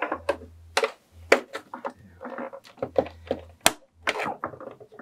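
Irregular sharp clicks and knocks of hard plastic as the housing panels of a Singer Confidence Quilter sewing machine are handled and pried apart.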